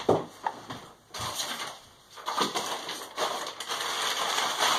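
Plastic wrapping and shopping bags rustling and crinkling as an item is pulled out and unwrapped, with a few sharp knocks about the start.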